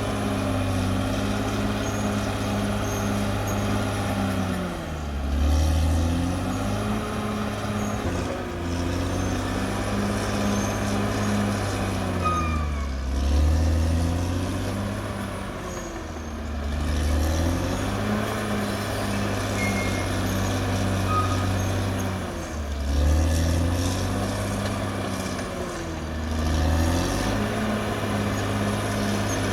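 Caterpillar D6R XL bulldozer's diesel engine working steadily. About six times its pitch sags and recovers while the low rumble swells, as the engine lugs under load and picks back up.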